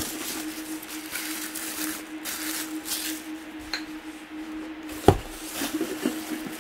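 Rustling and rubbing as packed china pieces are handled and unwrapped, with one sharp knock about five seconds in, over a faint steady hum.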